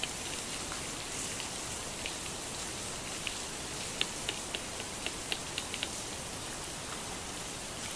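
Steady rain falling on dense forest foliage, with scattered sharp drip ticks that bunch together between about four and six seconds in.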